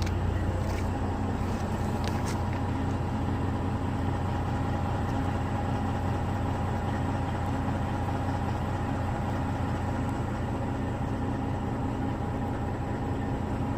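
Steady low mechanical hum with a few even tones layered over it and a faint high whine, unchanging throughout, like an engine or motor running.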